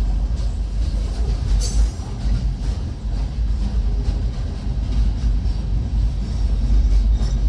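Long freight train rolling through a grade crossing: a steady low rumble of railcars passing.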